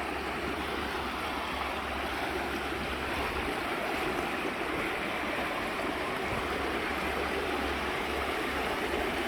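Shallow, fast-flowing river rushing over a rocky ridge: a steady, even rush of water.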